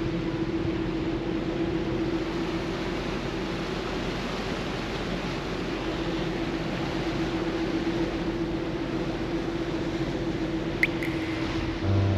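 Steady rush of wind and churned water from the moving ship's wake, over a steady hum from the cruise ship. A single short click about eleven seconds in.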